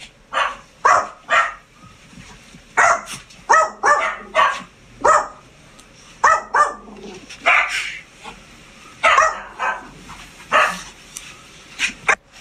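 A dog barking over and over, short sharp barks in uneven runs with brief gaps between them.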